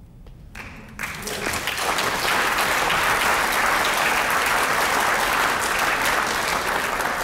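Theater audience applauding at the end of a poem. The applause starts about a second in, holds steady and begins to die down near the end.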